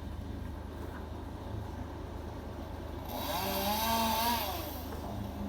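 Chainsaw cutting into the tree: about three seconds in it revs up for about a second and a half, its whine rising and falling, over a steady low engine rumble.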